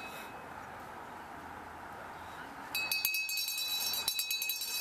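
Quiet outdoor background, then about three seconds in a rapid, continuous metallic ringing and clinking starts, like a bell being shaken hard, as a recumbent trike comes up the track.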